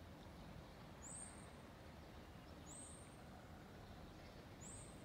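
Near silence outdoors: a faint, steady low background rumble, with a short high bird chirp repeated three times, about every two seconds.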